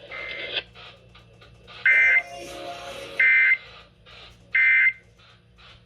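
EAS end-of-message (EOM) data bursts: three short, identical bursts of two-tone digital data about 1.3 seconds apart, the code that marks the end of the emergency alert.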